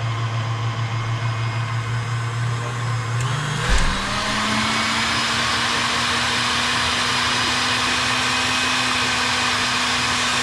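A small electric motor running steadily, then speeding up to a higher pitch about three and a half seconds in with a brief thump, and running on steadily at the higher speed.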